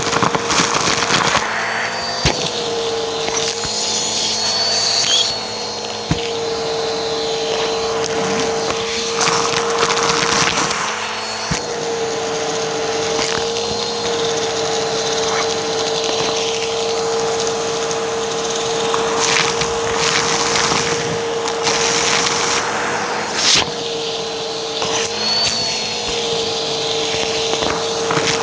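Vacuum cleaner running with a steady motor whine as its hose nozzle sucks up a pile of dry crunchy debris, with the bits crackling and clicking as they rattle up the hose. The whine wavers a couple of times as the nozzle digs into the pile.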